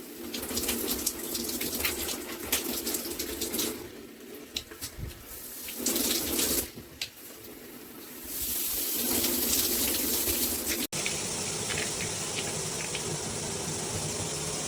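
Water spraying from a NOSAME handheld filter shower head, coming and going in spurts for the first several seconds, then running steadily at full flow. It cuts off abruptly about eleven seconds in and gives way to a steady, hissier spray.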